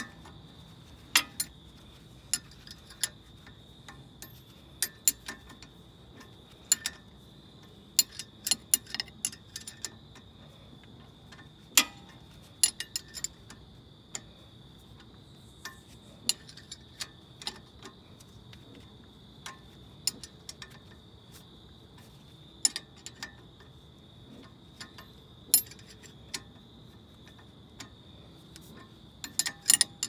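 Hand ratchet clicking in short, irregular runs while a 14 mm brake caliper bolt is turned, with a few sharper tool clicks. A faint steady high whine sits underneath.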